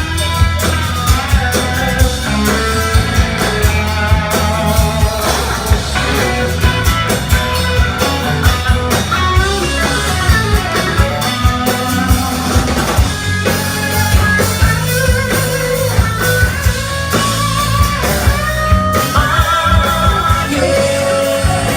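Live rock band playing an instrumental break, with lead guitar lines over drums and bass.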